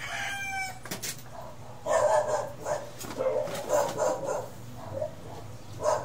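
A rooster crowing, its call ending within the first second, followed by a dog barking in a quick run of short barks.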